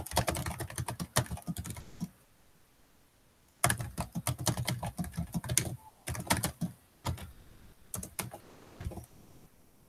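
Typing on a computer keyboard: fast runs of keystroke clicks, broken by a pause of about a second and a half about two seconds in, then thinning out toward the end.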